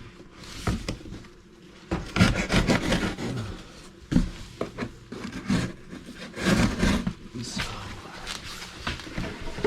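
Cardboard box being sliced open with a Benchmade Boost folding knife: irregular scraping and rasping strokes of the blade through tape and cardboard, with the cardboard rubbing and rustling, busiest from about two seconds in.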